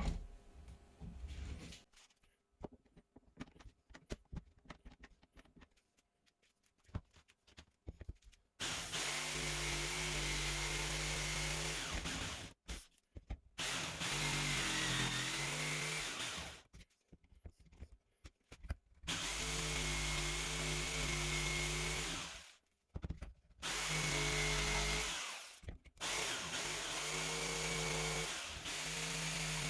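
Handheld electric power tool started and stopped in five runs of a few seconds each, its motor pitch sagging briefly as it comes under load; scattered light handling clicks come before the first run.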